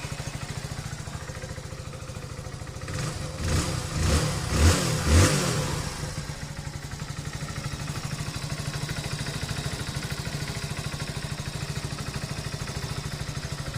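Hero Splendor BS6 97 cc single-cylinder four-stroke engine idling steadily after a tappet adjustment, blipped three or four times a few seconds in, then settling back to a steady idle.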